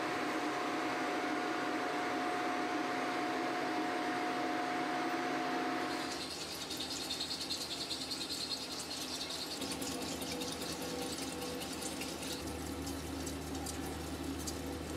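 Factory workshop ambience: a steady machine hum with a held tone. About six seconds in it changes to a busier noise of many small clicks and scrapes.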